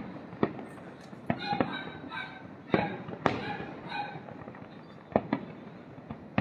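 Aerial fireworks bursting overhead in a string of sharp bangs at irregular intervals, several of them echoing briefly.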